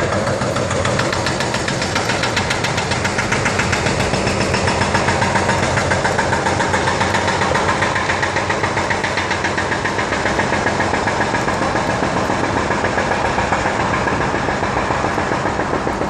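Inline skate wheels rolling over an asphalt trail: a steady rumble with a fast, even clicking, about five a second.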